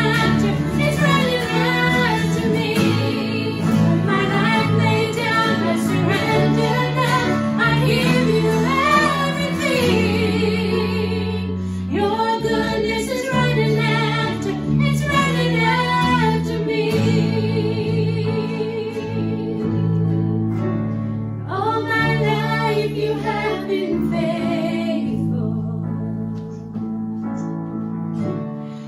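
A worship band performing a song: several women singing together over acoustic guitars and keyboard, with held chords under the melody.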